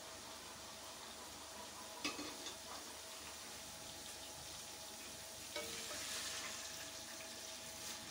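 Vermicelli roasting in ghee in an aluminium pot: a steady soft sizzle, with a sharp knock about two seconds in. About five and a half seconds in, the sizzle gets louder as a wooden spoon stirs the strands.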